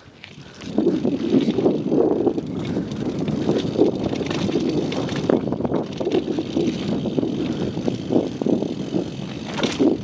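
Downhill mountain bike rolling fast down a dirt trail: tyres crunching over dirt and stones, with the bike rattling and knocking over the rough ground. It starts about a second in and runs loud and jolting.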